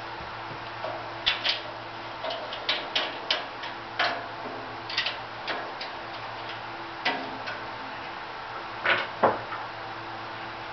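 Irregular clicks and knocks of metal parts being handled and fitted on a Woodmaster planer molder as its hood is put back on, a sharp pair about 9 seconds in being the loudest. A steady low hum runs underneath.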